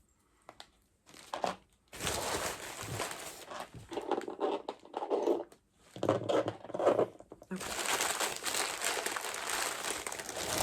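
Crinkly mystery pin pouch being handled and torn open, a run of crackling and rustling packaging noise with short pauses.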